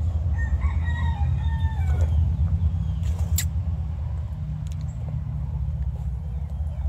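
A rooster crowing once near the start, a stepped cock-a-doodle-doo under two seconds long that falls at its end, over a steady low rumble. A sharp click a little past three seconds in.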